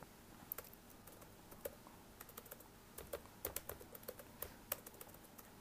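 Computer keyboard being typed on: faint, irregular keystrokes, a few at first and then a quicker run in the second half as a word is typed.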